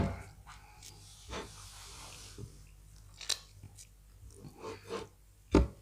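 Close-up eating sounds of wheat fufu with egusi soup: chewing and scattered mouth clicks, with a loud knock right at the start and another near the end.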